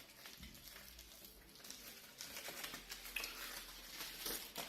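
Faint, scattered light clicks and rustles from small computer parts being handled, busier in the second half.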